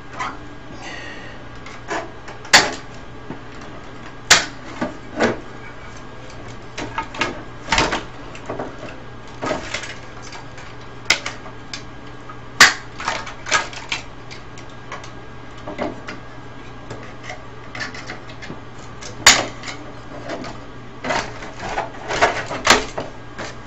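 Irregular sharp clicks and snaps of a hand tool cutting and prying at wires inside a CRT television chassis, with a steady low hum underneath.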